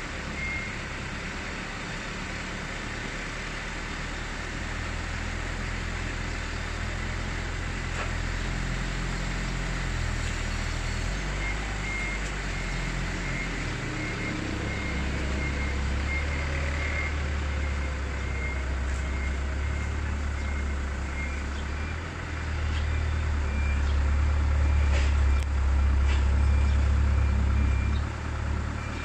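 Low vehicle engine rumble with a repeated high-pitched beeping, as of a reversing alarm; the rumble gets louder about three quarters of the way in.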